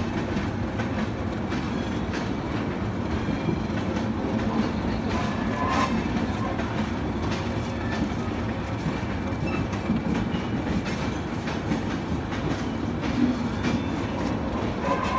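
Moving train: a steady rumble of wheels on the rails with irregular clickety-clack clicks over the rail joints.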